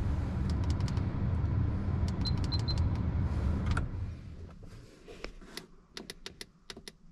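A steady low hum in the pickup's cab, with three short high beeps about two and a half seconds in, cuts off about four seconds in. Scattered light clicks and taps follow as the dash controls and air gauge are handled. The helper-bag air compressor is not running.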